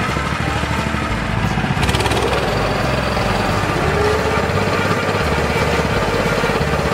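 Small air-cooled engine of a mini rice mill running steadily, getting a little louder about two seconds in.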